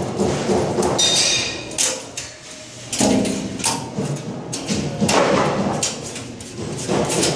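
Thick black cables being worked into a sheet-metal box overhead: irregular knocks, clacks and scrapes as the cables and hands hit and rub against the metal.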